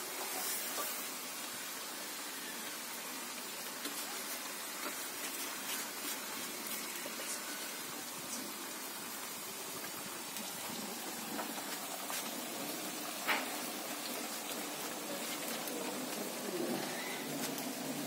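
Batuk (black-lentil doughnut rings) frying in a wok of hot oil over a wood fire: a steady sizzle with scattered faint crackles, and one sharper click in the second half.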